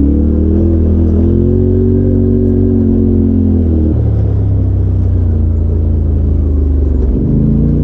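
Side-by-side UTV engine running under throttle on a rocky trail, heard from the cab. Its revs rise and hold for a couple of seconds, fall away about four seconds in, dip again near the end, then pick back up.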